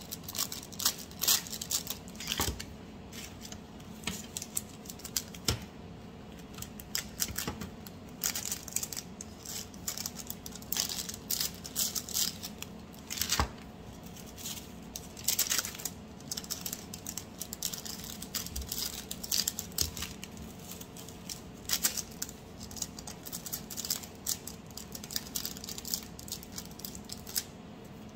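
Clear plastic packaging bags crinkling and rustling in irregular bursts as bar cakes are slipped into them, with occasional light knocks, over a faint steady hum.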